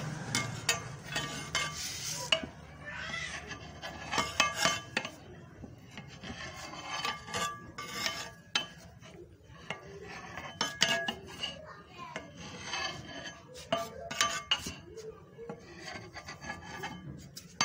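Long-handled metal spoon scraping and scooping through cooked rice in a large metal pot, making repeated irregular rasping scrapes and clinks against the pot. The chana pulao is being turned over after twenty minutes of dum cooking.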